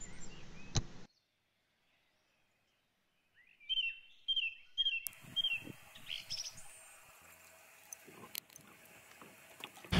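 Birds chirping outdoors: a quick run of short repeated calls about three and a half seconds in, then a few scattered chirps over faint ambient sound.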